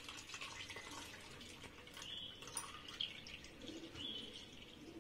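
Faint trickling and dripping of radish juice poured from a steel bowl through a plastic strainer into a bowl.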